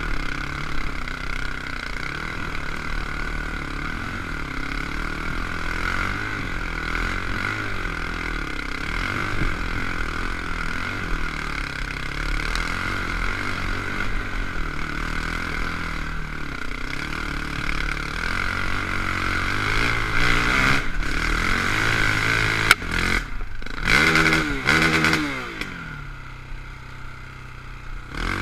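KTM 525 dirt bike's single-cylinder four-stroke engine running under load on a trail climb, its revs rising and falling with the throttle. About 23 seconds in there is a sharp knock and a hard rev, after which the engine settles to a steady idle.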